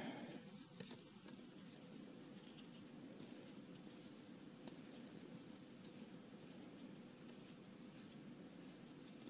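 Soft rustling and faint scattered ticks of sleeved trading cards being slid one by one from one hand to the other, over a low steady hum.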